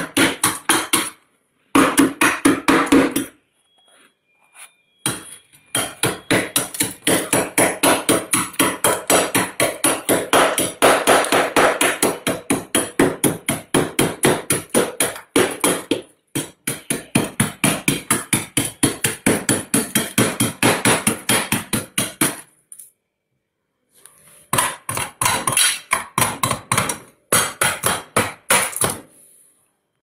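Metal blade scraping thick freezer frost in quick, even strokes, several a second, crunchy and squeaky, with a few short pauses.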